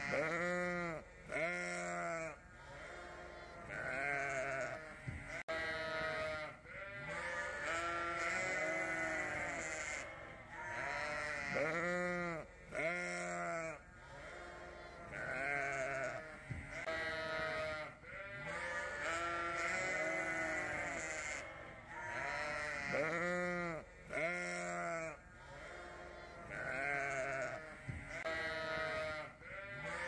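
A flock of Suffolk sheep and lambs bleating, with a call every second or two and some calls overlapping. Some calls are high and others deeper.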